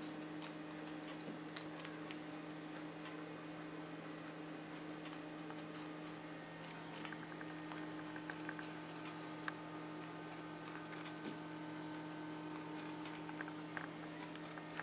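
Young white dwarf lop rabbit nibbling a piece of raw carrot held in a hand: faint, irregular crunching clicks as it bites and chews, over a steady low hum.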